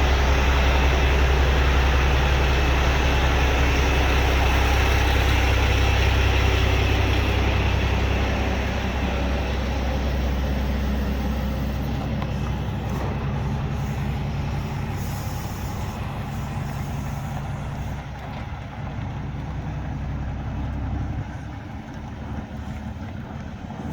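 Peterbilt semi truck's diesel engine running with a steady low hum, slowly fading after about eight seconds as the truck pulls away.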